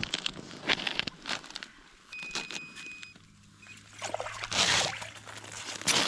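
Fishing line hauled by hand out of an ice hole, with scattered wet, slushy rustling and sloshing of water in the hole, then a larger splash about four and a half seconds in as a perch comes out onto the ice.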